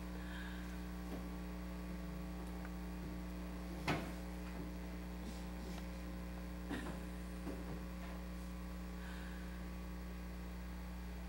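Steady electrical mains hum in the recording, with a single sharp knock about four seconds in and a couple of faint knocks a few seconds later.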